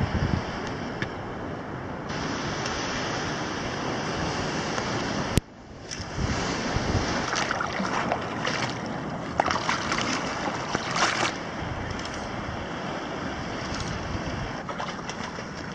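Sea water washing and lapping against a rock ledge, with wind buffeting the microphone. There is a brief click and drop in level about five seconds in, and splashier slaps of water in the middle.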